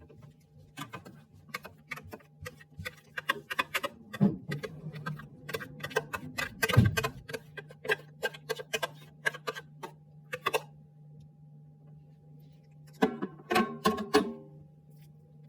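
Kitchen utensils and cookware being handled: a string of irregular sharp clicks and knocks, then a quick cluster of clinks that ring briefly near the end. A faint steady hum runs underneath.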